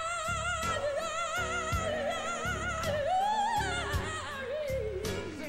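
A woman singing gospel, holding long wordless runs with a wide vibrato that slide down near the end, over a band with a steady beat and bass.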